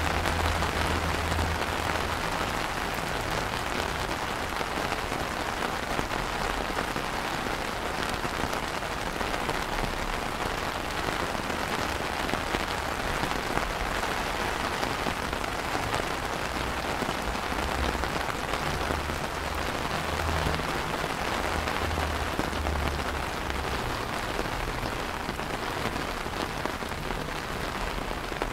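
Steady rain falling on wet, puddled paving tiles.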